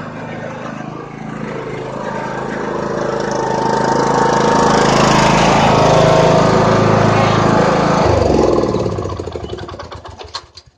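Riding lawn mower engine running at full throttle as the mower drives past: it grows louder, drops in pitch as it goes by, then fades away.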